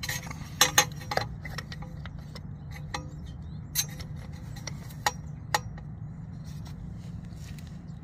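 A 17 mm socket on an extension being fitted onto a motorcycle's oil filter, metal clinking and tapping against the filter and nearby engine parts: a quick cluster of sharp clicks in the first second, then a few single clicks later. A steady low hum runs underneath.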